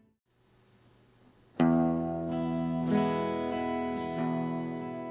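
Near silence for about a second and a half, then background music starts suddenly and plays on with sustained notes and a few fresh strums.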